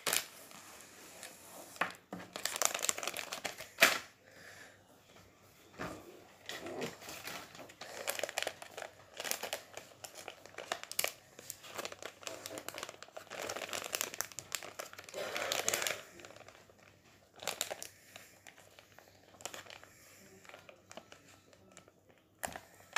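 Plastic foil wrapper of a trading card pack being crinkled and torn open by hand, in irregular bursts of rustling.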